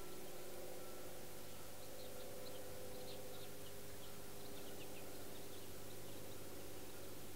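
Faint outdoor ambience: a steady hiss and low hum, with scattered short, high-pitched chirps from about two seconds in until shortly before the end.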